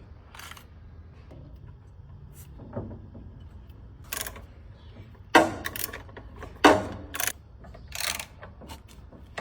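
A string of separate knocks and clunks, irregularly spaced, the loudest two a little past the middle, over a low steady hum.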